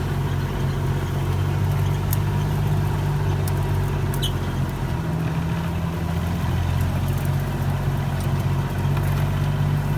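Vehicle engine running steadily under way, a low hum that rises slightly in pitch about five seconds in, with a few light clicks and rattles.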